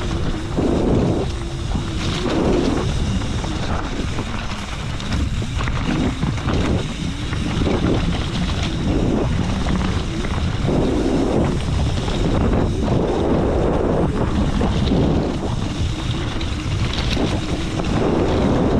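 Strong wind buffeting the microphone: a heavy rumbling gusty noise that swells and eases every second or two.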